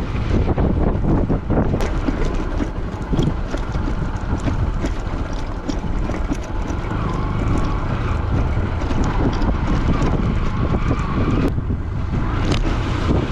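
Bajaj Pulsar NS200 motorcycle on the move over a rough dirt-and-gravel road: wind buffeting the microphone over the engine and road noise, with frequent small knocks and rattles from the bumpy surface.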